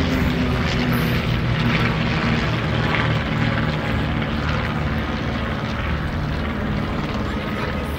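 Steady drone of a formation of experimental-category propeller planes flying overhead, several piston engines running together.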